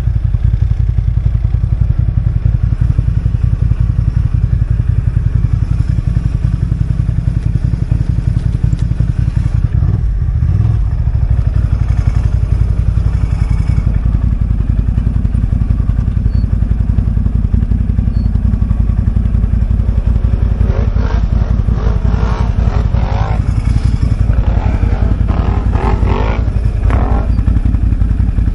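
Quad (ATV) engine idling steadily close by, a low, even drone that rises slightly about halfway through.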